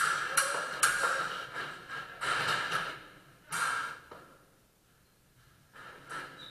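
Sabre blades striking one another in quick hits, each with a short metallic ring, several in the first few seconds, then a lull with one faint hit near the end.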